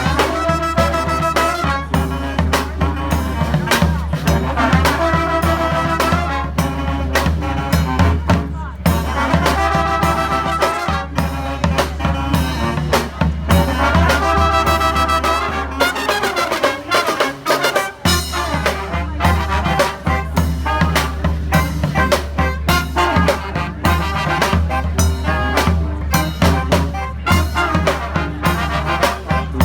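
Brass band playing an upbeat, jazzy tune: horns holding and trading melody lines over a steady beat of drum hits. The low bass part drops out briefly just past the middle and then comes back in.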